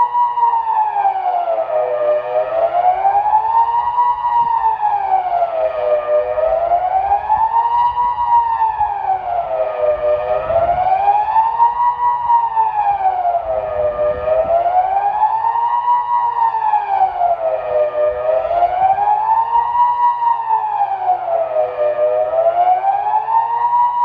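Kockum Sonics Delta 4 electronic civil-defence siren, fitted with the newer TK controller, sounding the Swiss general alarm: a continuous wail that rises and falls, peaking about once every four seconds.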